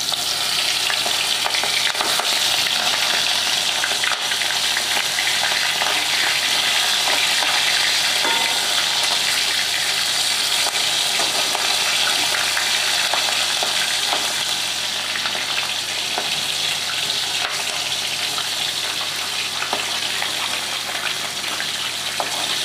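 Giant freshwater prawns (golda chingri) frying in hot mustard oil in a steel kadai: a steady, dense sizzle and crackle that eases slightly in the second half.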